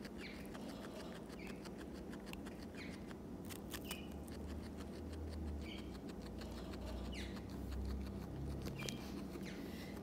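Guinea pig chewing raw vegetables (red bell pepper and romaine lettuce), many small crisp crunching clicks close to the microphone.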